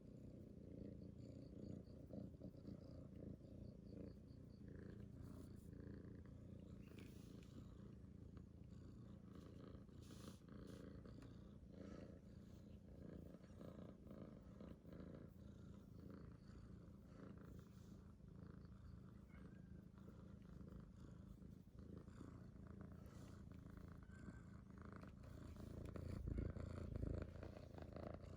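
Kitten purring steadily, a soft low rumble that grows louder near the end.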